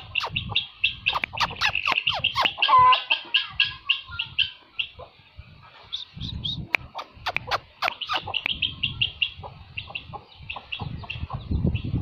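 Poultry calling: short, high-pitched chirps repeated several times a second, with a louder, lower squawk just under three seconds in and a short lull around the middle.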